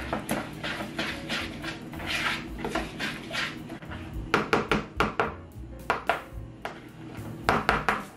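Kitchen clatter of a utensil knocking and scraping against dishes, with runs of sharp clinks a little past halfway and again near the end.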